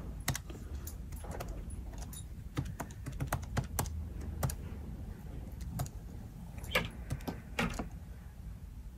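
Keys of a Casio PB-300 pocket computer being pressed one after another: a string of soft, irregular clicks as a line is typed in, with a couple of firmer presses near the end.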